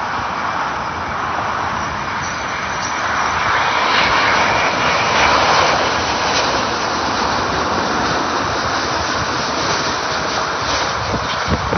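Boeing 787 Dreamliner twin-jet airliner on final approach, landing gear down, flying low overhead. Its engine noise grows to a peak about four to six seconds in, then holds a little lower.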